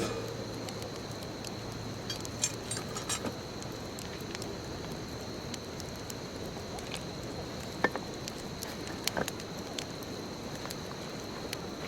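Wood bonfire burning with a steady soft hiss and irregular sharp pops and crackles, the loudest about eight seconds in.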